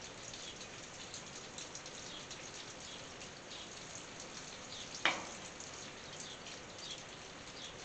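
Light rain pattering on a tin roof: a steady hiss full of quick, scattered drop ticks. One louder, sharper drop tap stands out about five seconds in.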